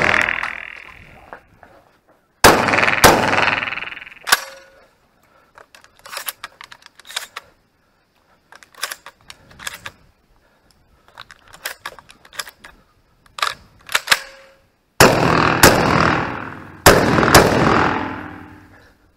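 Beretta shotgun firing: two blasts close together about two and a half seconds in, then about four more in quick succession near the end, each ringing on with a long echo. Quieter clicks and knocks come in between.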